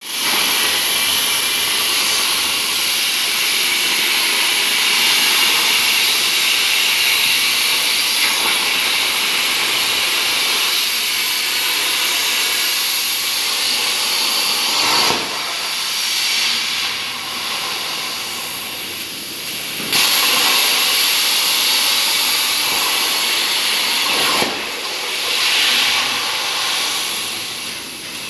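CNC plasma torch cutting 2 mm sheet metal: a loud, steady hiss of the arc and air jet. It eases off for a few seconds about halfway through and again near the end.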